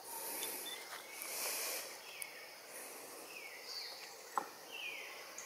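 Young macaques scuffling together on rocks and leaf litter, a rustling hiss in the first two seconds, then a few short high calls that fall in pitch and a single sharp tick.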